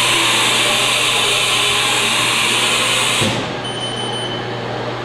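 Haas TM-1 CNC mill running through its program: a loud steady hiss that cuts off abruptly about three seconds in with a low thump, leaving the machine's steady low hum.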